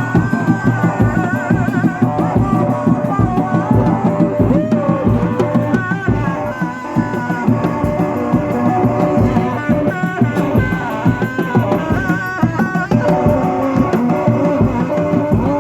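Kuda lumping accompaniment music: drums beaten in a steady, busy rhythm under a wavering melody line.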